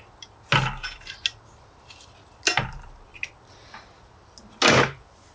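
Knocks and clinks as the steel bush axe head is handled and lifted out of its electrolysis bucket: three louder knocks about two seconds apart, with light clicks between.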